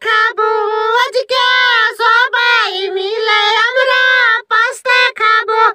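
A high-pitched, child-like voice singing a quick sing-song tune in short clipped syllables.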